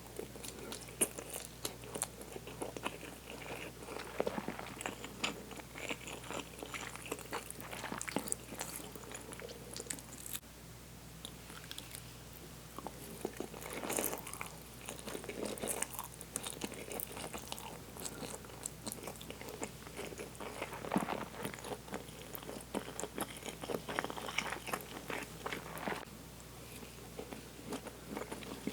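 A person eating close to the microphone: steady chewing with many small wet mouth clicks and smacks, over Indomie Mi Goreng instant fried noodles.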